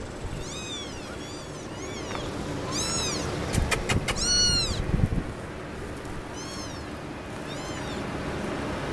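Young kittens fussing with about seven short, high-pitched mews, each rising and falling in pitch, the loudest about four and a half seconds in. A few sharp clicks come just before it.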